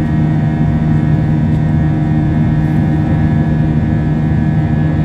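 Airbus A321 jet engines heard from inside the cabin during the climb after takeoff: a steady drone with a strong low hum and several steady higher tones.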